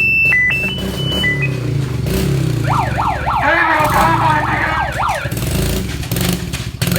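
An electronic siren-type alarm: a run of short beeps stepping between pitches, then fast rising-and-falling whoops from about two and a half seconds in. An engine runs steadily underneath.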